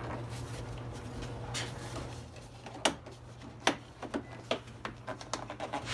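A run of sharp clicks and snaps as plastic clips and a bumper trim piece are pried loose by hand. Two loud snaps come about three and three and a half seconds in, then quicker small clicks, over a steady low hum.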